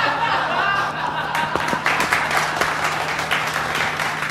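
Audience applauding, breaking out suddenly and keeping up, with music and voices under it.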